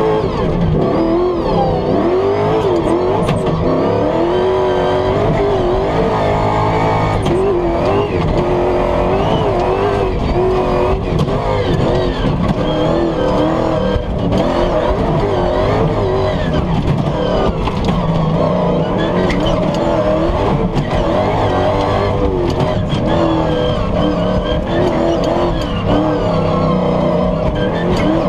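Toyota Hilux Dakar rally truck's V8 engine heard from inside the cabin at full speed, its revs climbing and dropping over and over through the gears. Frequent knocks and rattles come from the truck going over the rough track.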